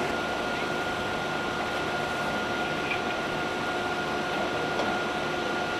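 Fire truck's engine running steadily, a constant mechanical drone with a thin steady whine over it.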